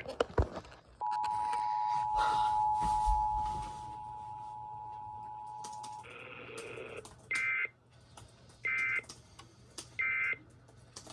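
Emergency Alert System tones: the two-tone attention signal, a steady dual tone, sounds for about five seconds. Then comes a short warble of digital data tones and three brief, evenly spaced data bursts, the end-of-message code that closes an EAS alert.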